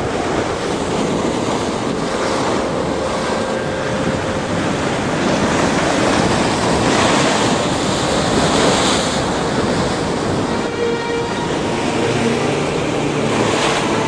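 Heavy storm waves breaking and surging against a rock lighthouse, a continuous wash of surf that swells to its loudest about seven to nine seconds in as a wave bursts over the tower.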